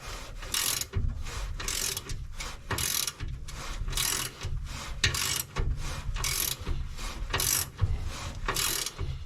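Hand ratchet wrench clicking in repeated strokes, roughly once a second, as a nut is turned to draw a serrated wheel stud into a Ford 9-inch axle housing.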